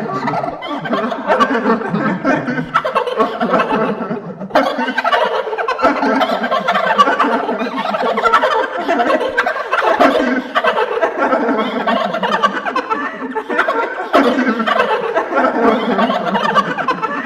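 Horror sound effect of ghosts laughing: many overlapping voices cackling in waves, their pitch sliding downward again and again. A fresh wave starts suddenly about four and a half seconds in.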